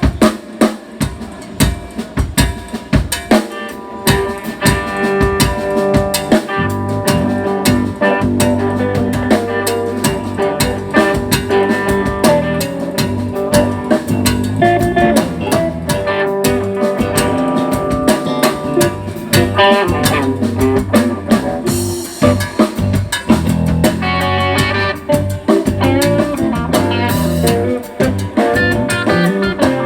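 Live band playing an upbeat song on drum kit, electric guitar and bass guitar, with sharp snare and rimshot hits keeping a steady beat; the bass joins about seven seconds in.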